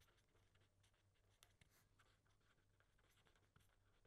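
Near silence: faint scratching of a pen writing on paper, in short strokes, over a faint low steady hum.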